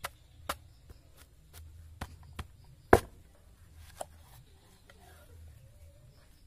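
Machete chopping into a banana corm to split it: a series of sharp, irregular chops, the loudest about three seconds in.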